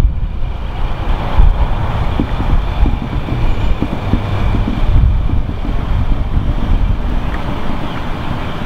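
Wind buffeting the microphone: a loud, uneven, gusting low rumble.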